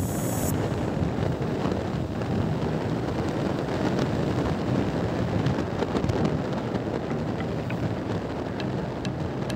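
Wind buffeting the microphone over the steady drone of a Bajaj Pulsar NS160's single-cylinder engine while the motorcycle is ridden along a road.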